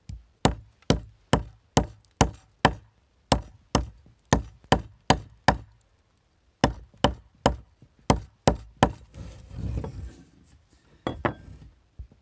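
Bushbaby Knives pack hatchet chopping into a branch laid on a wooden bench: a fast run of sharp chops, about two or three a second, pausing briefly about halfway, with a couple of last chops near the end.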